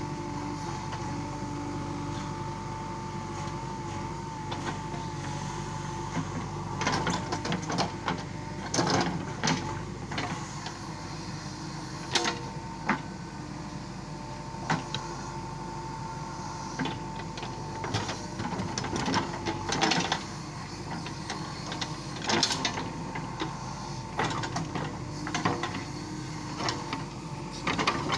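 JCB 3DX backhoe loader's diesel engine running steadily with a high whine, while the backhoe bucket digs and scrapes through soil, with irregular knocks and clanks from about a quarter of the way in.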